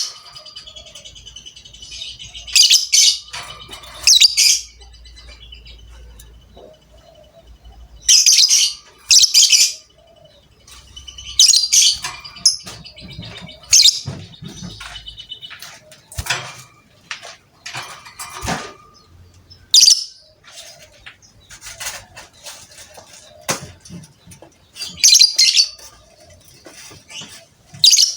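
Lovebird calling: loud, shrill squawking bursts about every two to five seconds, with quieter chirps and a thin rapid high trill between them.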